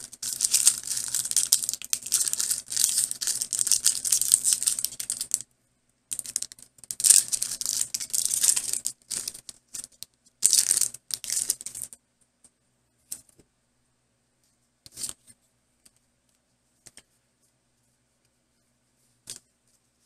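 Foil Pokémon TCG booster pack wrapper crinkling and tearing open. It rustles for about five seconds, then again from about six to twelve seconds in, followed by only a few faint ticks.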